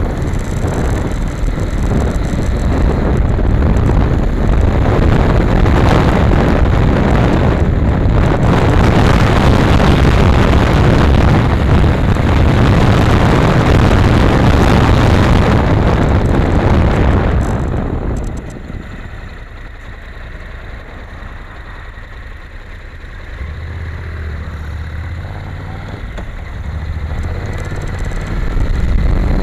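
Wind noise over the bike-mounted camera's microphone and the riding noise of a Honda NC700X's parallel-twin engine while moving at speed. About 18 seconds in the wind noise drops away as the bike slows, leaving the lower hum of the engine, and it builds again near the end as the bike picks up speed.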